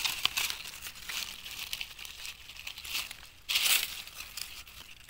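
Dry fallen leaves crinkling and rustling as a hand brushes through leaf litter, with a louder crackle about three and a half seconds in.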